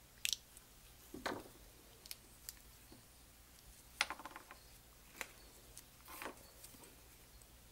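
Scattered light clicks and clinks of small metal carburetor parts and hand tools being handled during a rebuild, about seven in all. The loudest comes about four seconds in, with a short metallic ring.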